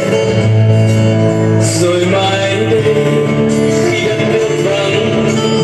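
Music with a singing voice, held notes over a steady accompaniment: a Lao song played for a group dance.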